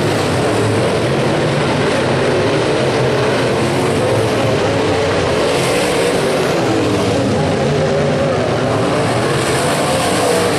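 Several dirt-track modified race cars' V8 engines running hard at once, their overlapping engine notes rising and falling as the cars go through the turns.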